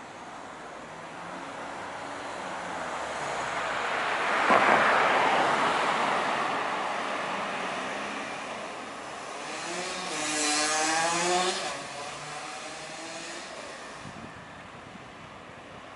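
Cars passing on a street: one passes close by about four to five seconds in, and from about ten to twelve seconds in an engine speeds up with a rising pitch as a vehicle pulls away, then the traffic fades back to a low hum.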